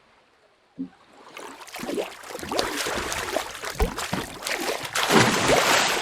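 A thump about a second in, then water splashing and sloshing with many small clicks and knocks, building and loudest near the end.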